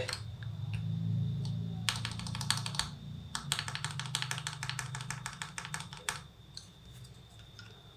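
Backspace key on a mechanical keyboard with KTT Panda linear switches lubed with Krytox 205g0, pressed rapidly over and over. It clacks in two quick runs, a short one about two seconds in and a longer one from about three and a half to six seconds.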